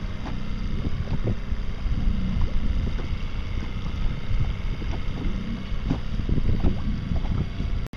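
Wind buffeting the microphone over choppy open water: a steady, gusty low rumble. The sound cuts out for an instant near the end.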